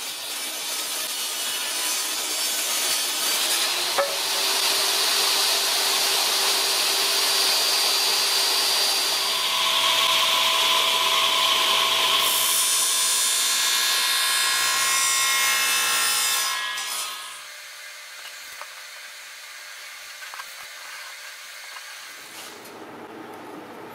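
Power saws cutting spruce: a table saw ripping a board, then a DeWalt 770 radial arm saw cutting the strip. The sawing stops about 17 seconds in, followed by quiet, light handling of wood.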